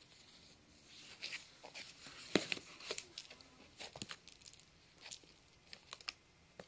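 Munchkin cat moving and pawing inside a small cardboard box, its claws and body scraping and rustling the cardboard in irregular short scratches and taps, the loudest about two and a half seconds in.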